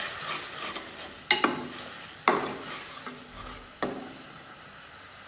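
Metal spatula stirring and scraping onions and ground spices frying in an aluminium karahi, over a soft sizzle, with three sharp knocks of the spatula against the pan.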